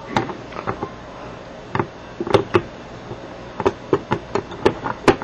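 Irregular light clicks and clacks as a laser-cut metal plate is worked down over nylon bolts onto a stack of plates and washers. The bolt holes are a close fit, so the plate catches and taps as it goes down.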